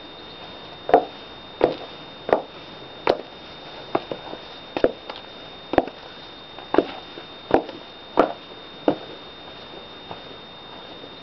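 Footsteps in high-heeled shoes: about eleven sharp, evenly paced steps, one a little under every second. They begin about a second in and stop near the end.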